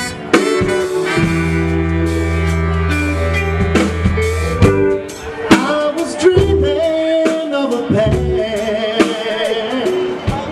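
Loud music with drums and a singing voice, a blues-style band.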